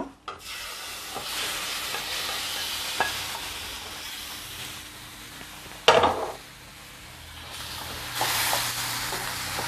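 Raw chicken pieces tipped into a hot steel kadai of masala paste frying in oil, sizzling, with a sharp knock about six seconds in. Near the end the chicken is stirred into the masala with a spoon.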